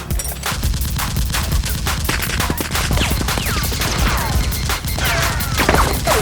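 Rapid gunfire sound effects, several shots a second, with falling whistles mixed in from about halfway, over background music.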